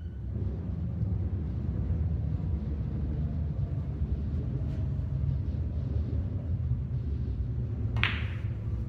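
A steady low rumble throughout, and about eight seconds in a single sharp clack of a pool cue driving the cue ball into an object ball.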